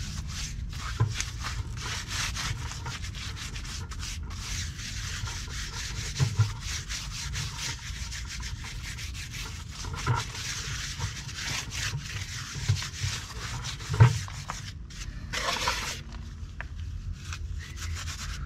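A hand packing and smearing hydraulic cement into a chiselled-out crack in a concrete pool wall: a continuous gritty rubbing and scraping with small clicks, and a few soft knocks, the loudest about fourteen seconds in. The cement is already starting to firm up.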